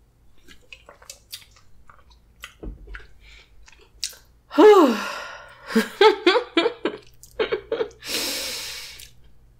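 Faint sipping and swallowing from a soda can, then about halfway a loud vocal sound that falls in pitch, a quick run of short vocal sounds, and a long breathy exhale near the end.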